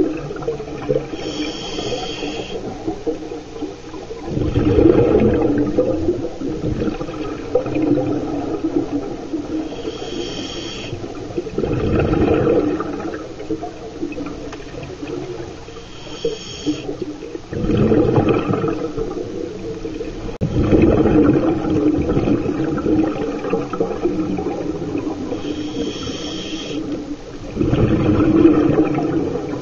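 Scuba regulator breathing underwater: a short hiss as the diver inhales through the demand valve, then a loud rush of exhaled bubbles, repeating about every six to eight seconds, four breaths in all.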